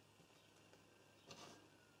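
Near silence: room tone, with one faint brief scrape about a second and a half in.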